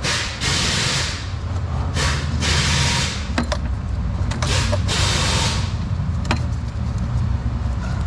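Hands working a stubborn plastic electrical connector loose in an engine bay: rubbing and scraping noise in bursts of about a second, with a few sharp clicks, over a steady low hum.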